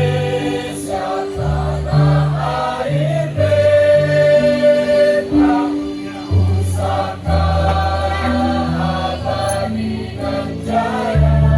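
A choir singing in parts, holding each note for a second or so, over steady low backing notes.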